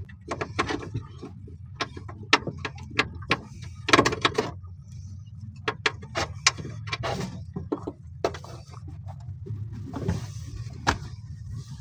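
Irregular metallic clicks and clinks of hand tools on a car's clutch cable fittings as the cable nut is run off its threads and the cable is worked out, over a steady low hum.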